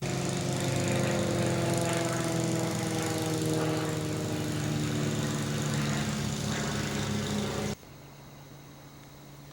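A small engine running steadily, which stops abruptly about three-quarters of the way through, leaving a faint low hum.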